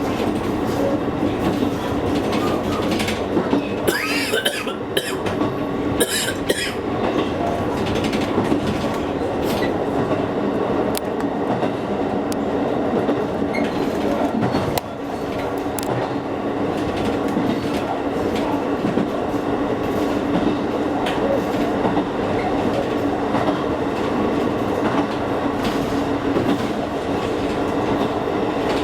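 Electric commuter train running along the line: a steady rumble and hum with wheel clatter and rattles, most of them about four and six seconds in.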